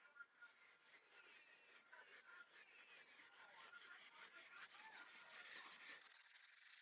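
Very fine steel wool rubbed back and forth over a rusted steel machete blade wet with rust remover, scrubbing off the loosened rust. Faint quick strokes, about four a second, that stop about six seconds in.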